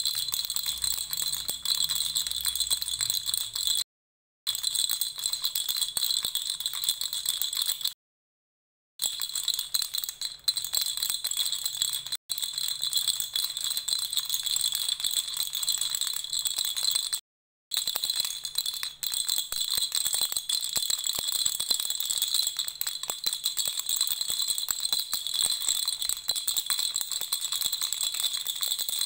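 A baby rattle shaken continuously: dense rapid clicking with a steady high ringing. It cuts out to silence three times, briefly near 4 s, for about a second near 8 s, and briefly near 17 s.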